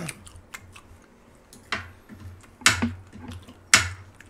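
Eating utensils clacking against dishes or the grill: three sharp clacks about a second apart, each louder than the last, over a faint low hum.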